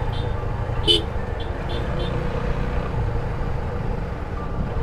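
Motorcycle engine running steadily at low speed, a constant low rumble with road and wind noise. A short high beep sounds once about a second in.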